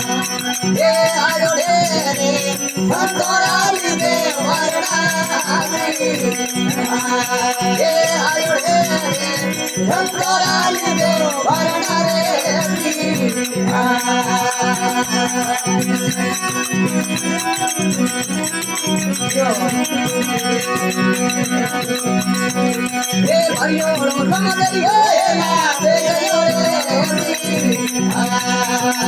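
Rajasthani devotional folk bhajan: a male voice singing over the steady drone of a desi veena (tandura) and a continuous rattling hand percussion.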